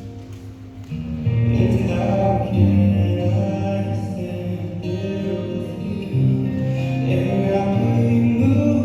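Music with singing: a slow vocal song with held notes, swelling about a second in.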